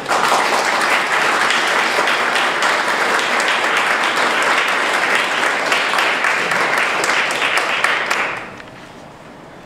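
Audience applause that breaks out at once and stays steady for about eight seconds, then dies away.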